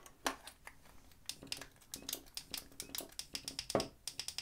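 Light, irregular small clicks and taps, several a second, from handling Shimano Dura-Ace 9070 Di2 components and plugging their wires back in.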